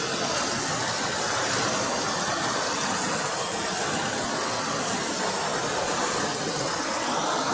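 Steady rushing water, an even unbroken roar without distinct splashes.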